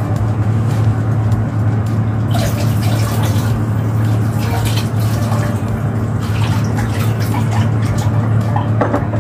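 Water running from a kitchen tap, starting about two seconds in, with a few light clinks of kitchenware, over a steady low hum.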